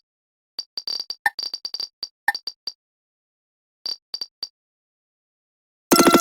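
Short electronic blips and clicks in uneven groups, each with the same high tone, then a loud half-second burst of synthetic sound with several pitches at once near the end.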